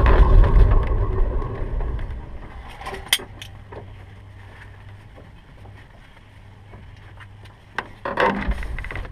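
Small aircraft's engine dying away over about two seconds as it is shut down, leaving a faint low hum. A few sharp clicks follow, and near the end a short burst of rustling and handling in the cockpit.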